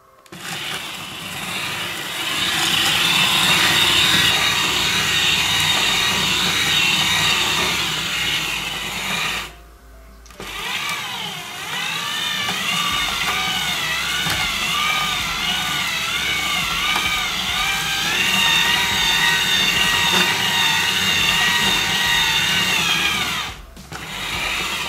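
Small electric gear motor of a radio-controlled concrete mixer truck running with a steady whine. It stops for about a second near the ten-second mark, then starts again, its pitch rising and falling as the stick is moved, and cuts off shortly before the end.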